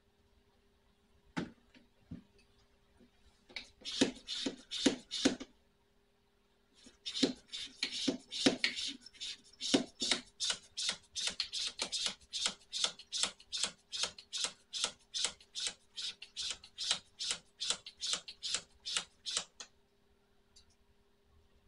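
Hand pump of a radiator pressure tester worked in quick strokes, each a short hiss of air, pressurising the cooling system of a small-block Chevy 350 to check it for leaks. A few strokes come about four seconds in, then a steady run of about three a second from about seven seconds until near the end.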